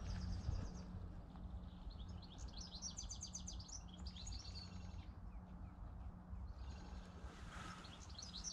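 Small woodland songbirds singing: several short phrases of fast, high, trilled notes, over a low steady hum.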